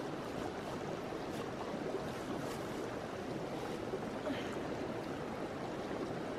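Shallow river rushing steadily over stones at a ford.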